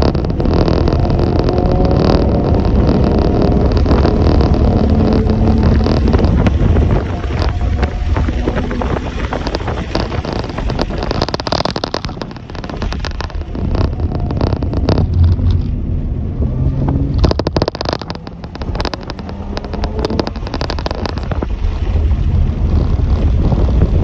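A motor vehicle engine running, its pitch gliding up and down, under heavy low rumble and noise typical of wind buffeting the microphone.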